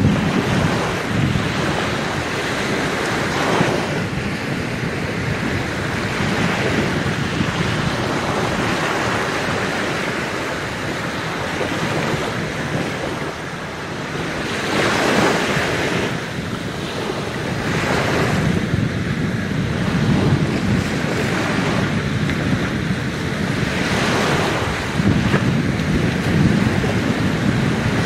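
Small waves breaking and washing over a sandy shore, swelling every few seconds, with wind on the microphone.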